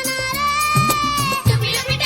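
Background music with a steady drum beat and a long held melody note through most of it.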